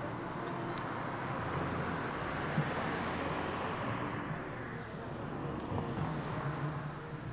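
A car driving past on the street: its tyre and engine noise swells to a peak about three seconds in, then fades away.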